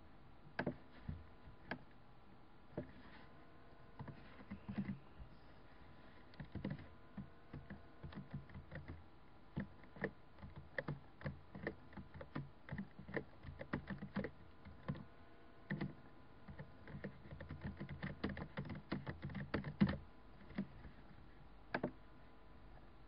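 Computer keyboard keys clicking in irregular runs, mostly the arrow keys being tapped over and over, densest in the last third. A faint steady hum runs underneath.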